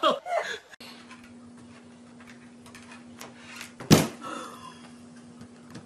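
A single loud, sharp bang about four seconds in, over a faint low steady hum.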